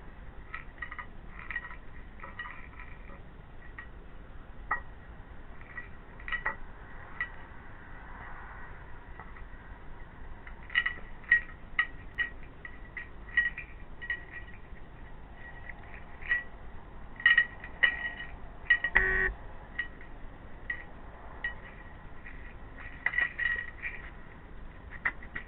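European hedgehog eating dry food pellets from a plate: irregular sharp clicks and crunches, some with a light clink of the plate, coming in busy runs, with one louder burst of noise about 19 seconds in.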